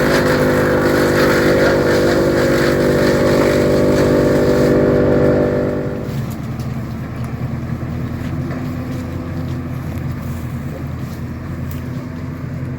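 Tractor and PTO-driven TOMCAT M4250AFP woodchipper running with a steady machine hum. About six seconds in, the sound drops and the higher tones fall away, leaving a quieter, lower steady hum.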